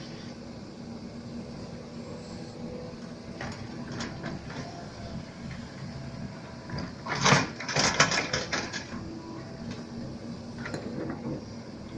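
Mini excavator working: a steady motor hum, with a louder burst of clattering knocks about seven to nine seconds in and a few single clicks around it.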